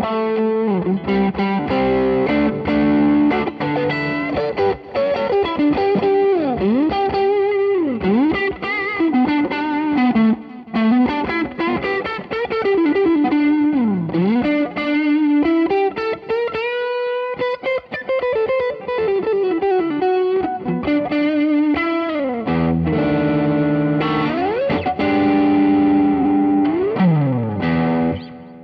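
Music Man Silhouette Special electric guitar played through MODEP effects plugins on a Raspberry Pi–based Pisound, with distortion. Notes slide and bend steeply up and down in pitch, and the playing stops abruptly at the end.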